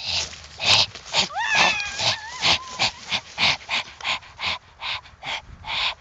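Someone running hard through low forest undergrowth: rhythmic swishing strokes, about two or three a second. About a second in, a high wavering whine-like cry rises and holds for about a second and a half.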